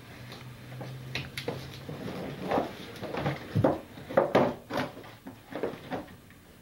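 Irregular knocks and clatter of folding-bike parts being shifted and pressed into a hard plastic suitcase, loudest about four seconds in.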